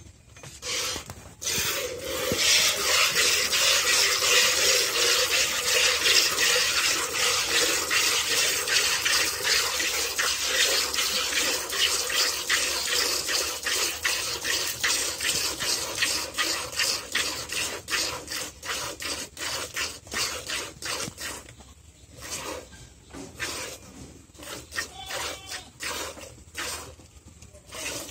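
Milk squirting from a cow's teats into a plastic bucket during hand milking, in quick rhythmic jets that hiss and splash as they hit the milk. The squirts grow stronger about two seconds in and ease off somewhat in the last third.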